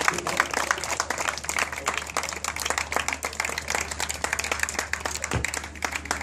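Crowd applauding: many hands clapping in a dense patter that grows a little sparser and quieter toward the end.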